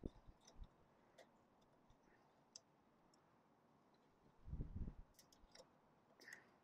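Faint, scattered small clicks as a plastic daytime-running-light bulb socket and its bulb are handled, with a soft low thump about four and a half seconds in.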